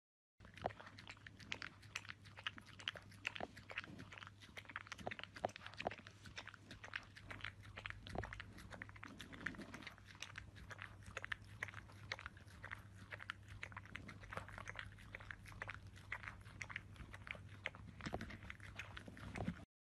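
French bulldog puppy eating wet food from a bowl: steady wet chewing and smacking, many irregular small clicks a second, over a faint low hum.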